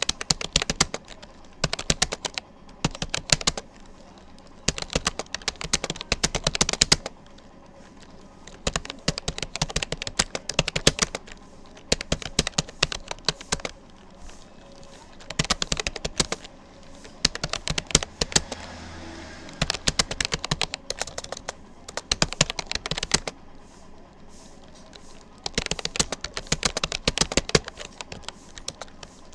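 Rapid keystrokes on a Rapoo computer keyboard: fast touch-typing in runs of a second or two, broken by short pauses.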